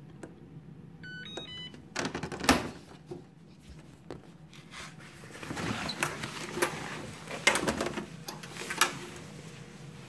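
An Electrolux Perfect Care 900 condenser tumble dryer plays a short tune of electronic beeps as it is switched off mid-cycle, followed by a sharp clack. Then come irregular rustling and knocks as the synthetic ski trousers are handled in the open drum.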